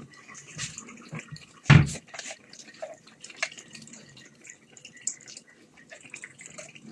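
Thick yam porridge plopping and bubbling in a cooking pot, with many small irregular clicks and plops and one loud knock about two seconds in.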